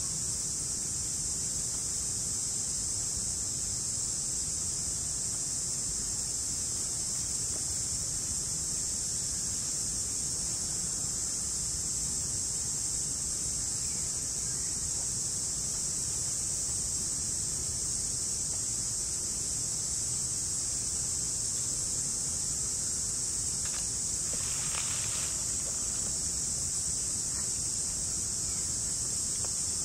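Steady, high-pitched chorus of insects droning without a break, over a low rumble of wind on the microphone, with one short call about four-fifths of the way through.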